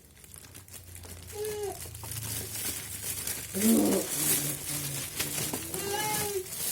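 Plastic packaging crinkling and rustling as it is handled, with a few short, arching vocal sounds mixed in.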